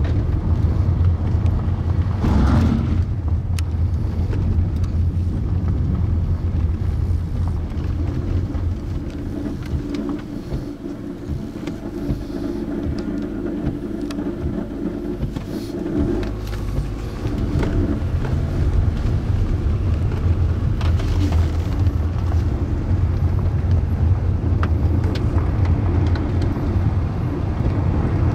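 Steady low rumble of a car running, with a faint engine tone joining in for several seconds in the middle.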